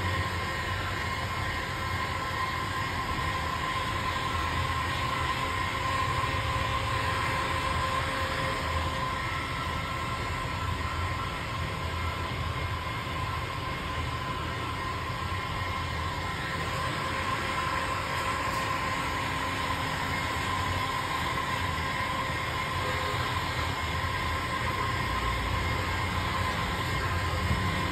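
Handheld electric heat gun running steadily, its fan blowing hot air with a constant whine, as it heat-shrinks window-tint film onto a windshield.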